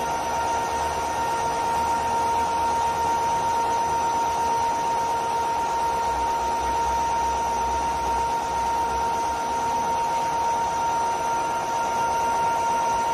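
Aldoosanle CK6150 CNC lathe running: the spindle turns the chuck and metal bar with a steady high whine over a hiss while a turret-held drill works the end of the bar.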